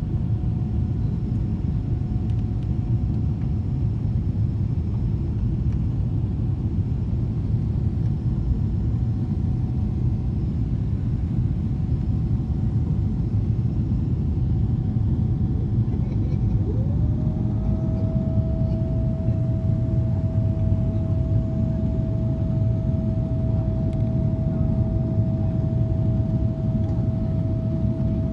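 Steady low roar of a Boeing 777-300ER's GE90 engines and rushing air, heard inside the cabin during the climb after takeoff. About two-thirds of the way through, a steady high whine slides in and holds.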